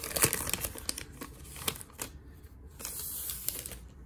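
Wrapper of a Topps baseball card pack crinkling and tearing as it is opened and the cards are pulled out: a dense run of sharp crackles that thins out about halfway through, with a brief soft rustle after it.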